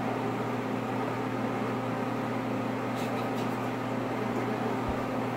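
Steady low mechanical hum with a few faint clicks about three seconds in.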